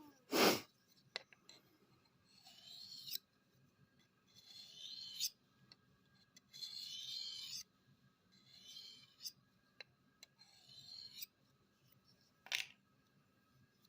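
A knife blade stroked across a wooden strop charged with diamond paste: five slow rubbing passes about two seconds apart, honing away the burr on the edge. A sharp knock just after the start and another near the end.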